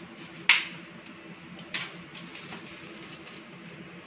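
Knife cutting through the crust of freshly baked garlic bread on a baking tray: a sharp crunch about half a second in, a second crunch about a second later, then lighter crackling as the bread is handled and broken apart.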